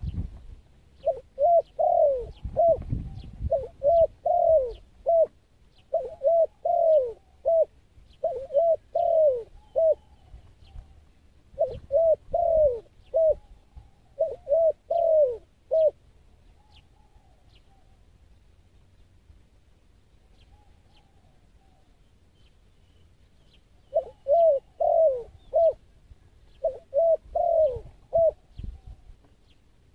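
Spotted dove cooing: about eight phrases of four or five arched coos each, with a pause of several seconds midway before two more phrases.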